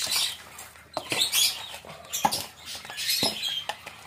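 Metal spoon stirring a bowl of small batter-coated crabs: wet, sticky scraping and squelching, with a few sharp clicks of the spoon against the stainless steel bowl.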